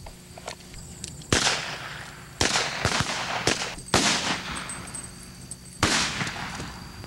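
About six gunshots fired in an irregular string over roughly four and a half seconds, each a sharp crack followed by a trailing echo, some about half a second apart.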